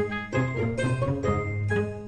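Background music: a light, tinkly tune with bright plucked or chiming notes over a steady bass.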